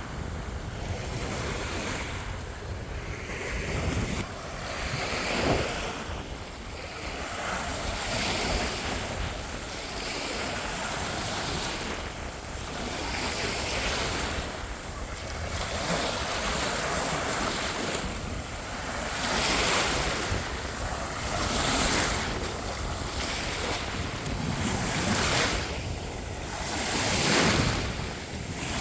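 Sea surf washing onto the beach, the waves swelling and falling back every couple of seconds, with wind buffeting the microphone.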